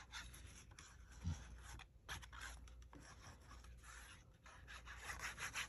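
Faint scratching and rubbing of adhesive being applied to a cardstock panel, a run of short, quick strokes.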